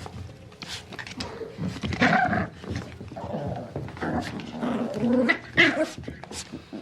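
Puppies vocalising in short, irregular calls, the loudest about two seconds in and again around five and a half seconds in.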